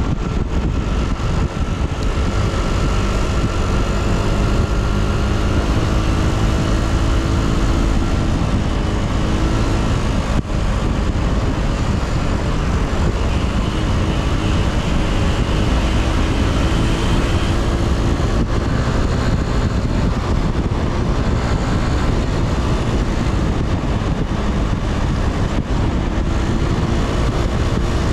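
Yamaha Cygnus X scooter's single-cylinder engine running while riding, its pitch slowly rising and falling with the throttle, under heavy wind rumble on the camera microphone.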